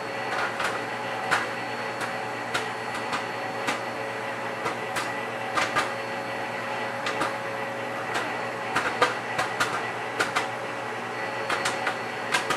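Microwave oven running with a steady hum while popcorn pops inside a bag in it: irregular sharp pops, sometimes several in quick succession.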